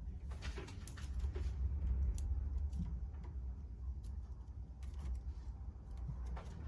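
Baby kittens moving about in a basket: scattered faint rustles and light clicks over a low steady rumble.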